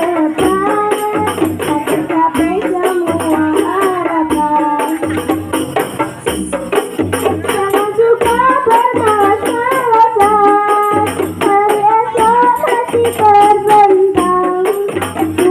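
Girl's voice singing a religious Indonesian song into a microphone, over rebana frame drums hand-struck in a steady, busy rhythm. Low stepped notes run beneath the drumming.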